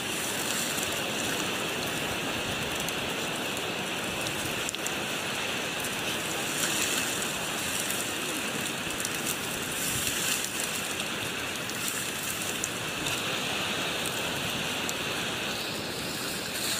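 A steady, even hiss of water, rain-like, with no single sounds standing out.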